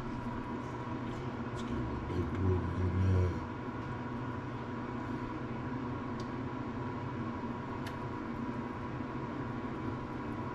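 A steady mechanical hum with a faint held tone, and a few light clinks of a whisk against a small metal bowl as a creamy mixture is stirred and poured into a pan. A brief low rumble, the loudest sound here, comes about two seconds in and lasts about a second.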